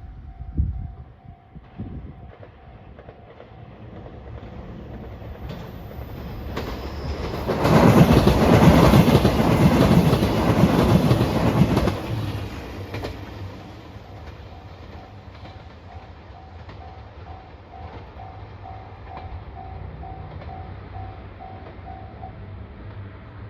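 A JR Shikoku 2700 series diesel limited express train passing through a level crossing, loud for about five seconds in the middle. The crossing's warning bell rings in a steady pulsing beat before and after the pass and stops near the end.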